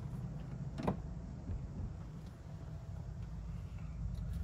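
A steady low background hum, with a single short knock about a second in.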